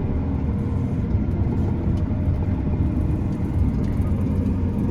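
Diesel engine of large harvest machinery running steadily, a low even rumble with no change in speed.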